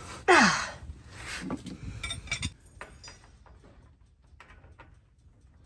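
Steel combination wrench working a drain plug under a tractor: a loud, brief sound falling in pitch near the start, then several light metallic clinks over the next two seconds.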